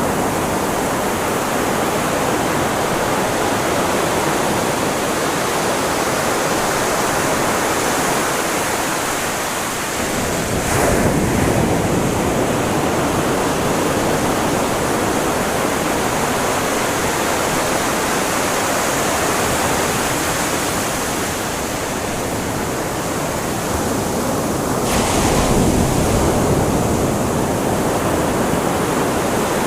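Ocean surf on a beach: a steady wash of breaking waves, with a bigger wave crashing about ten seconds in and another about twenty-five seconds in.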